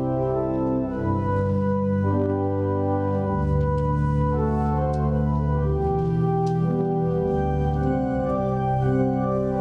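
Organ playing slow, sustained chords that change every second or two: the instrumental introduction, before the tenor comes in.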